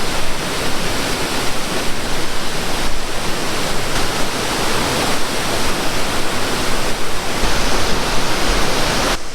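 Loud, steady rush of a waterfall pouring into its pool.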